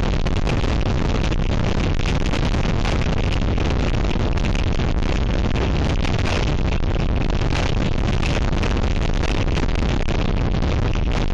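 Gale-force wind roaring and buffeting an outdoor nest-camera microphone: a loud, steady, rumbling rush of noise, heaviest in the low end.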